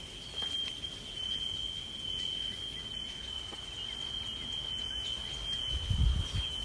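Building fire alarms sounding as one steady high-pitched tone, still going off after tornado damage. A couple of low thumps come near the end.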